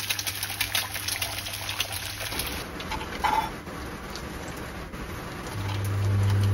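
Egg frying in oil in a pan on an induction hob: a dense crackling sizzle over a steady low hum for the first two seconds or so. Then a kitchen knife slicing a tomato on a wooden cutting board, with a short knock about three seconds in and a loud low hum near the end.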